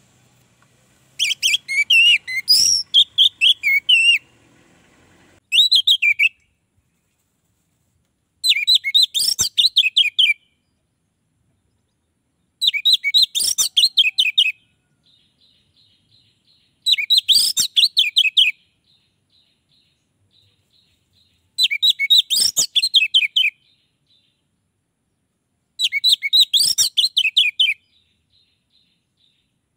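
Orange-headed thrush singing in full voice: seven loud phrases of rapid, warbling notes, each a second or two long, with a few seconds' pause between them. It is the kind of song that other orange-headed thrushes are drawn to answer.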